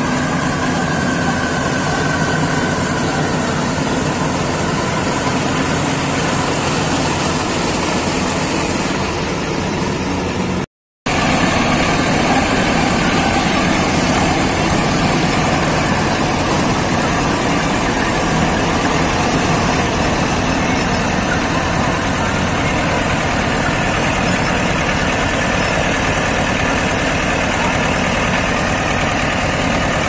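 Kartar Crop Cruiser combine harvester running steadily while cutting standing wheat: a loud, even drone of engine and machinery. The sound drops out completely for a moment about a third of the way in, then carries on the same.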